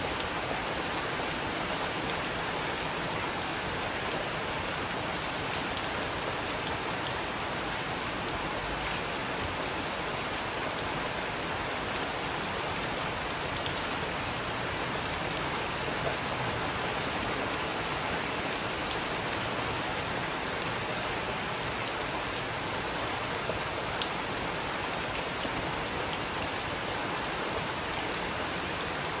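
Steady rain falling, an even hiss, with a handful of sharp single pops scattered through it, the loudest about ten seconds in.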